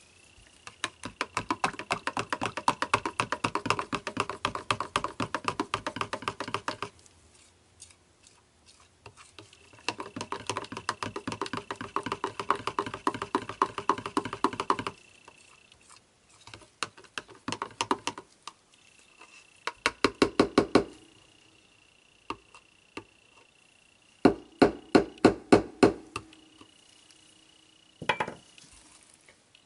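Colourant being stirred into soap batter in a plastic jug: a small utensil clicks rapidly against the jug's sides in several bursts, two long ones of several seconds followed by shorter ones. A faint steady high whine runs behind it.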